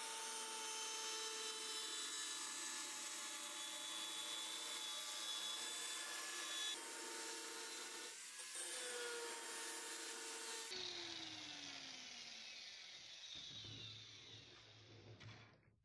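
Electric angle grinder running with a steady whine while its disc cuts grooves into a wooden board, the pitch dipping briefly under load a couple of times. About eleven seconds in it is switched off and winds down with a falling whine that fades away.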